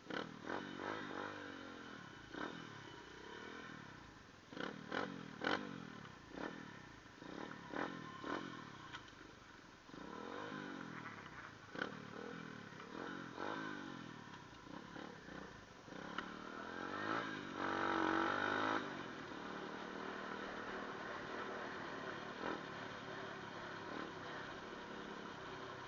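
Motorcycle engine revving up and down again and again, with scattered knocks and clatter. It revs hardest for a couple of seconds about two-thirds of the way through, then runs steadier.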